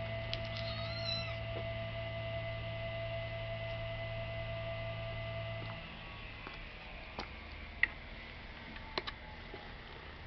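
A cat meows once, briefly, about a second in, over a steady hum that cuts off about halfway through. A few sharp clicks or taps follow in the second half.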